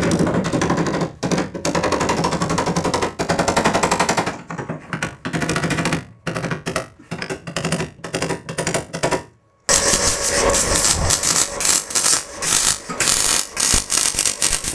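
MIG welder arc crackling in a series of bursts as spot and stitch welds are laid onto a steel cab panel, with short pauses between welds. A sudden break comes just before ten seconds, then the crackling bursts resume.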